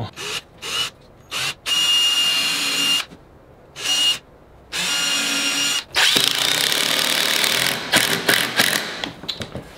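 Cordless drill drilling pilot holes into the edge of plywood: a few short trigger blips, then several runs of about a second with a steady motor whine and short pauses between them. The longest run comes about six seconds in, with the bit cutting into the wood, followed by a few clicks and rattles.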